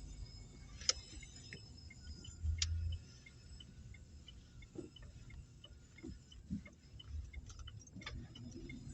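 Light, even ticking at about two to three ticks a second, with a few sharp clicks and soft low knocks, heard inside a car.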